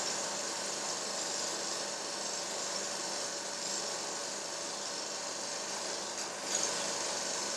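A steady mechanical whirr and hiss with a faint steady hum, like a small motor running. A brief louder rustle about six seconds in.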